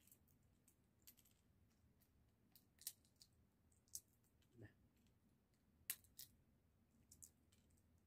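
Sunflower seeds being shelled by hand: faint, irregular small cracks and clicks of the husks, about eight over the stretch.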